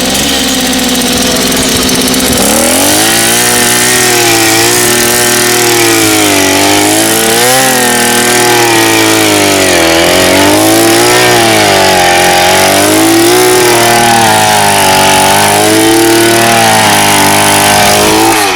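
Gasoline earth auger's small engine idling, then throttled up about two seconds in and held at high speed. Its pitch sags and recovers over and over as the auger bit works into the soil. It drops back right at the end.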